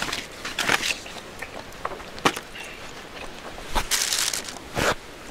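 A few short crinkles and taps as a non-stick barbecue grill sheet is handled and laid over a small camp grill's grate, with a cluster of these noises about four seconds in.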